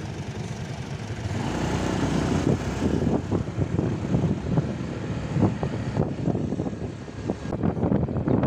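Riding noise of a moving two-wheeler: wind buffeting the microphone with irregular low thumps over a steady road rumble, and a faint engine hum for a couple of seconds early on.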